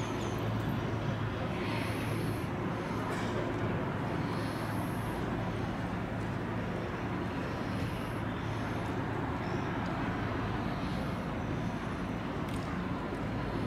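Steady city background noise: distant road traffic with a constant low hum.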